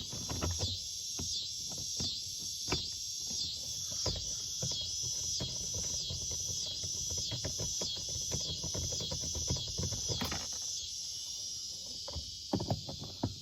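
Insects chirp steadily in a high, pulsing drone, about two pulses a second. Small clicks and knocks come from hand tools working the door panel's T25 Torx screws.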